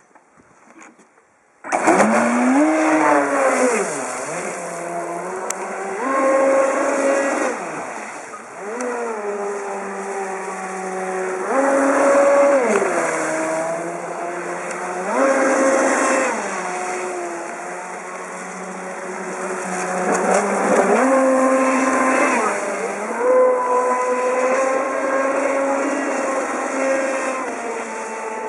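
Off-Shore Warrior RC speedboat running fast across the water, its motor whining and its pitch climbing and dropping again and again with the throttle, over a steady hiss. The sound starts suddenly about two seconds in.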